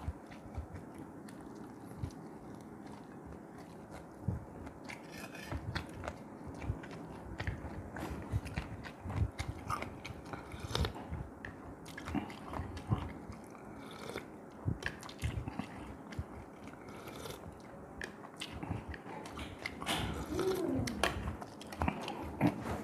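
Close-miked mouth sounds of a person eating fish head soup: chewing with irregular wet clicks and lip smacks, busier and louder near the end.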